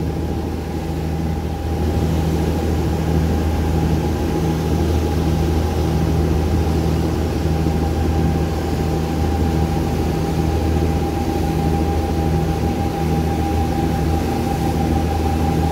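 Cruise boat's engines running steadily under way: a deep hum with a steady higher whine above it, over an even rush of wind and water.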